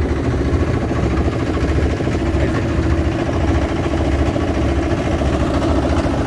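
Small engine in a wooden boat running steadily at a constant speed.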